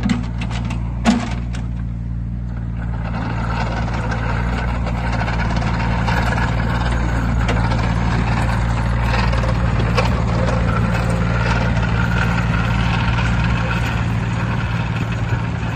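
JCB 8032 ZTS mini excavator's diesel engine running steadily as the machine travels on its rubber tracks, with a few clanks in the first second or so. A rushing travel noise builds over it from about three seconds in.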